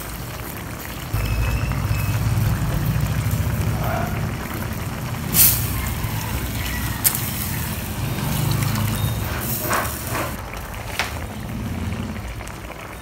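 Low engine rumble of a heavy vehicle, coming in suddenly about a second in and swelling and fading, with a few short sharp clicks and hisses over it.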